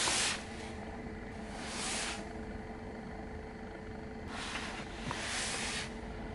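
Tyre hiss of cars passing on a wet road, heard from inside a parked car as three swells of hiss, the longest about a second and a half near the end, over a steady low hum.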